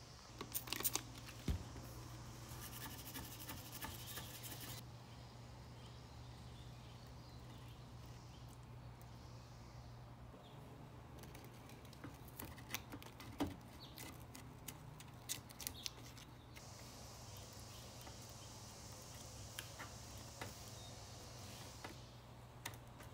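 Faint handling sounds of painter's tape being torn and pressed onto the circuit board: scattered small clicks and crackles in two clusters, near the start and about halfway, over a steady low hum.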